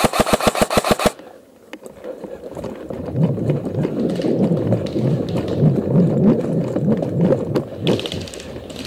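An airsoft electric rifle firing a full-auto burst of about ten rapid shots, then the player running over forest ground with footfalls and gear rattle, and a few more sharp shots near the end.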